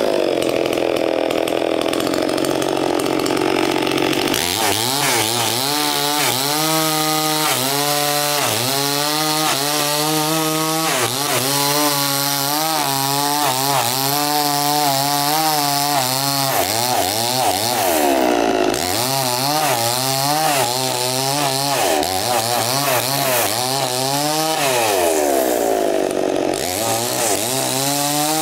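Two-stroke petrol chainsaw running: held at high revs for the first four seconds, then revved up and down again and again, about once a second, with a couple of longer drops and climbs in pitch in the second half.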